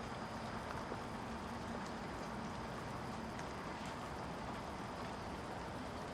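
Steady outdoor noise of a wet snowstorm: snow falling and wind, with scattered faint ticks and a faint steady hum underneath.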